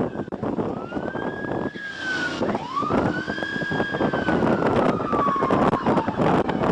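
Police car siren in wail mode, rising and falling in long slow sweeps, over the cruiser's engine and road noise during a pursuit.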